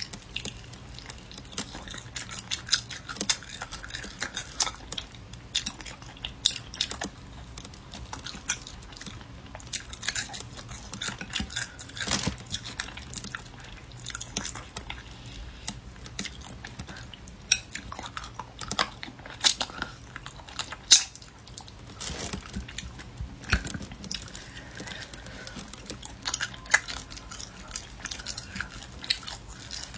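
Close-miked chewing and biting on spicy rabbit head, with many irregular small crunches and wet mouth clicks. The meat has gone dry and chewy.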